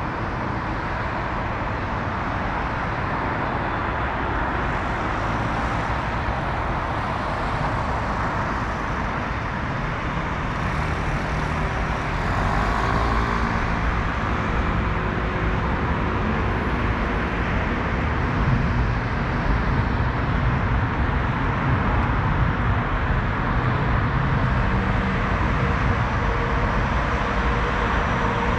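Steady road traffic running on a multi-lane road, with a Taipei Metro Circular Line train moving on the elevated viaduct about halfway through, where the sound grows louder and stays so.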